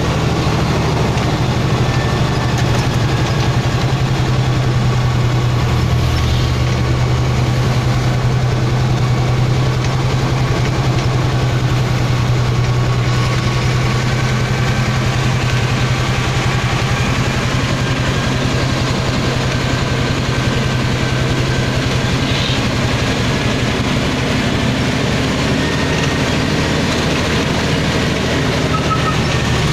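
Truck's diesel engine running steadily, a low drone heard from inside the cab while driving.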